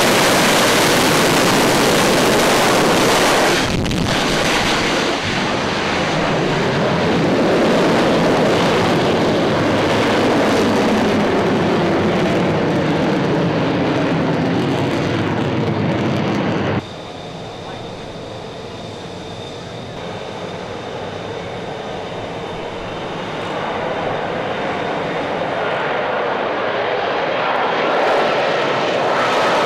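F-35B's Pratt & Whitney F135 jet engine running loud on a ship's flight deck, with abrupt changes where shots are cut together. About 17 s in it drops suddenly to a quieter jet noise with a steady high whine, which builds up again toward the end.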